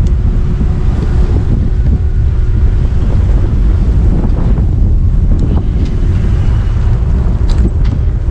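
Loud, steady wind buffeting on the microphone during a ride, a constant low rumble, with a few faint clicks near the end.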